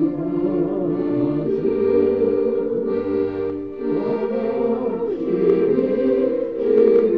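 A group singing a Russian folk song together over held instrumental chords from a reed keyboard instrument such as an accordion.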